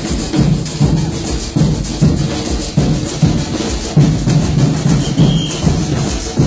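Coco percussion music: a low drum beating a steady rhythm, about two beats a second, with a shaker rattling continuously over it.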